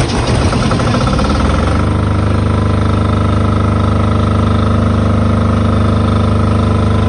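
Diesel generator engine running just after starting: uneven for the first couple of seconds, then settling into a steady, even run.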